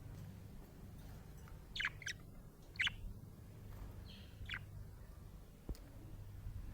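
A budgerigar giving about four short, sharp chirps over about three seconds in the middle, over a steady low background hum.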